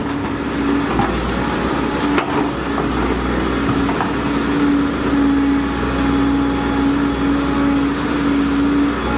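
Volvo EC210DL excavator running steadily, its engine rumbling with a constant whine on top. A couple of faint knocks come about one and two seconds in.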